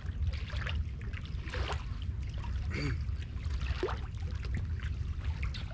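Wind rumbling on the microphone over lapping river water, with scattered light clicks and rustles.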